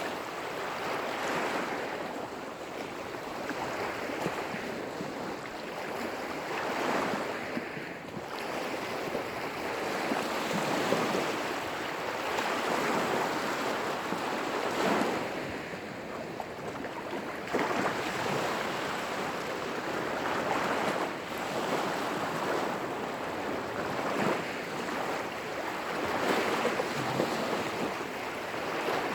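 Small lake waves breaking and washing onto the shore, surging again every few seconds.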